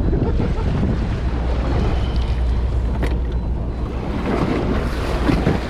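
Steady low rumble of a fishing boat at sea, with wind buffeting the microphone and water noise. A single sharp click about three seconds in.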